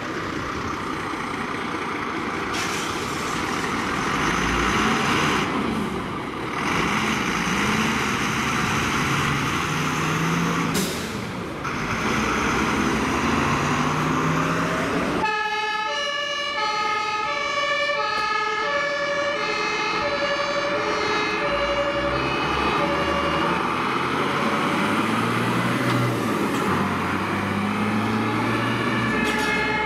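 German fire engines pulling out on an emergency run under sirens. In the first half, diesel engines rev up through a dense wash of siren and traffic noise. After a sudden change about halfway, a clear two-tone horn repeats alternating high and low notes as the trucks, including a turntable ladder, drive off.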